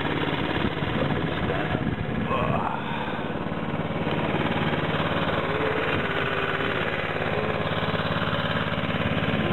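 Boat motor running steadily at an even speed.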